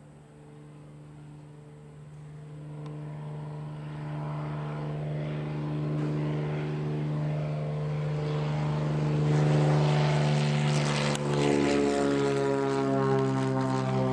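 Modified 1982 Cessna 210 (550 Centurion conversion) at full power, its single propeller and Continental 550 six-cylinder engine giving a steady drone. The drone grows from faint to loud as the plane lifts off and climbs toward the microphone, and its pitch falls a little near the end as it passes.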